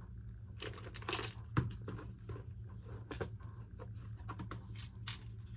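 Hands handling small parts at a workbench: brief crinkling and rustling with scattered light clicks and a sharper knock about a second and a half in, over a steady electrical hum.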